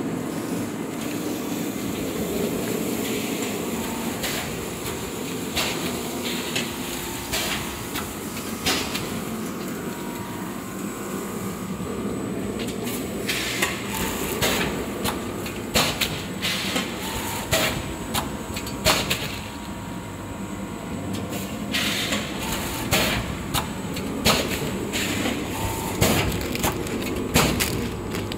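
Automatic vertical form-fill-seal packaging machine and its incline feed conveyor running, a steady mechanical clatter with repeated sharp clacks of the bagging and sealing mechanism, roughly one every second in the second half.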